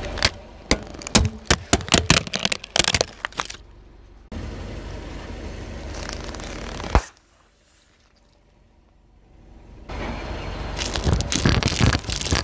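Car tyre rolling over plastic wireless headphones, which crack and snap in a rapid series of sharp cracks. About seven seconds in, a single loud pop as the tyre bursts an inflatable flamingo float, and near the end crunching and popping as the tyre squashes squishy egg toys and water beads.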